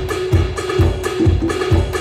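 Carlsbro CSD500 electronic drum kit set to its Latin percussion kit, played in a steady groove: low drum beats a little over twice a second, with wood-block clicks and pitched hand-drum tones in between.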